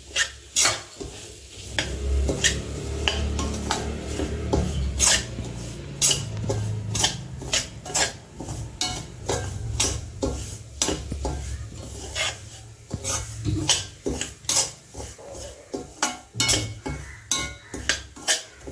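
A slotted steel spoon stirring semolina as it roasts in ghee in a stainless steel kadai, scraping and clinking against the pan one to two times a second. A low rumble runs underneath through the first two-thirds.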